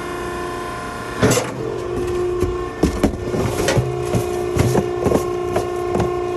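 Maren cardboard baler's hydraulic power unit running with a steady hum. From about a second in, a string of irregular knocks and crackles of cardboard and metal against the machine.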